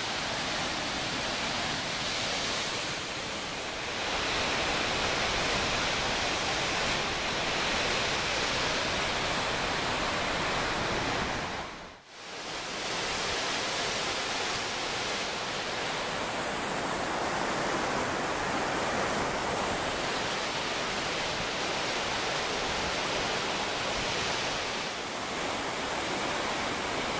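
Steady roar of Vernal Fall's rushing water and spray, dropping out briefly about twelve seconds in.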